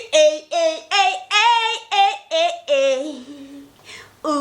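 A woman singing unaccompanied: a quick run of about seven short sung syllables, a brief pause, then a long held note near the end.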